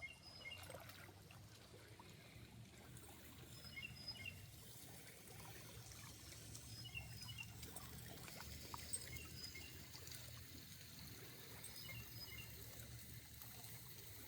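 Near silence: faint outdoor ambience with a steady low hum and a few faint, short high chirps.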